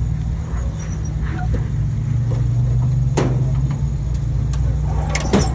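Vintage flat-fender Jeep engine running steadily with a low drone while driving, with a sharp knock about three seconds in and a cluster of clattering knocks near the end.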